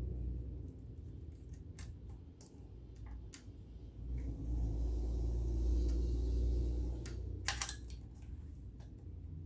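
Scattered small clicks and knocks of a screwdriver and handling on the metal body of a vintage Electra sewing machine as a cover screw is undone, with a low rumble in the middle and the sharpest click about two-thirds of the way in.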